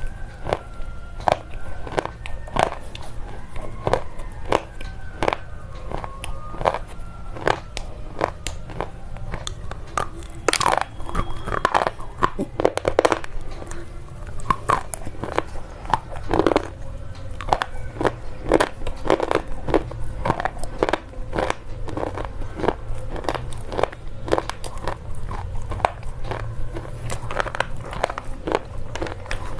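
Slate pencils being bitten and chewed, with a run of sharp, brittle crunches a few times a second.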